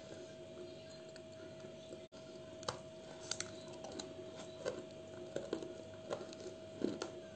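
Crisp crunching bites and chewing into a dry chalky mineral lump close to the microphone, as sharp clicks coming several times a second from about two and a half seconds in, after a brief cut-out. A faint steady hum runs underneath.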